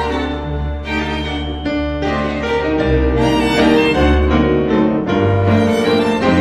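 Background music: bowed strings, violin and cello, with piano.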